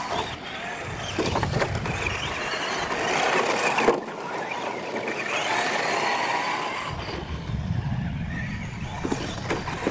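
Radio-controlled monster trucks racing over a dirt course, their motors and gears whining as the pitch rises and falls with throttle, over the rustle of tyres on dirt. A sharp knock about four seconds in as a truck hits an obstacle.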